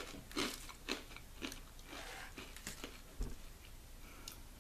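A person chewing a crisp, thin savoury rice cracker (Bourbon Usuyaki petite cracker), with close crunches about twice a second that fade in the last second.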